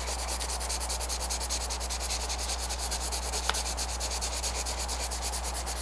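Colored pencil scratching on paper in rapid, even back-and-forth shading strokes, laying down a dark shadow tone. A steady low hum runs underneath.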